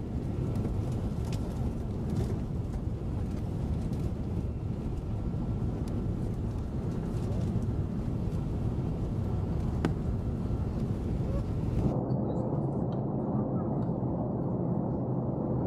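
Steady roar inside an Airbus A380's cabin in flight: the jet engines and the rush of air, mostly low in pitch. About twelve seconds in, the sound turns more muffled as the high end drops away.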